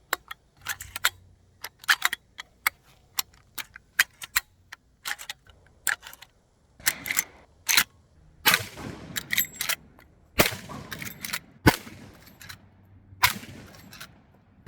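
Marlin 1895 SBL lever-action rifle in .45-70 being worked and fired. A run of sharp clicks and clacks comes first, then about five shots with echoing tails, a second or two apart, in the second half.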